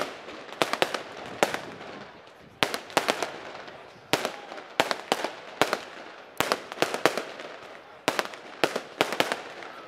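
Aerial fireworks shells bursting overhead: about twenty sharp bangs, often two or three in quick succession, over a steady hiss between the reports.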